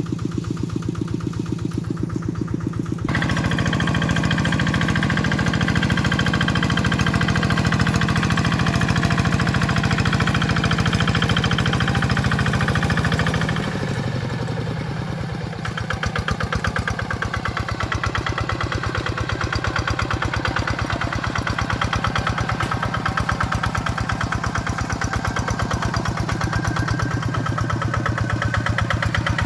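Kubota RD65 single-cylinder diesel engine of a two-wheel hand tractor running steadily with an even beat while it works through flooded paddy mud. It gets louder about three seconds in and dips briefly for a couple of seconds around the middle.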